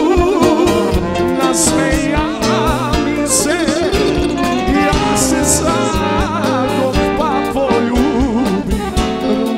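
Live band playing an instrumental passage: a wavering, ornamented lead melody over violin, accordion, keyboard, electric guitar and drums, with a steady beat.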